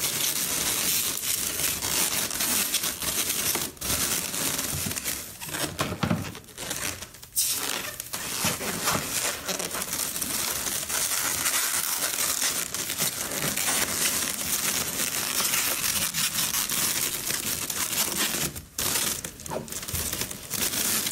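Steady crinkling and rustling of balloons being handled and adjusted by hand, with a couple of brief lulls.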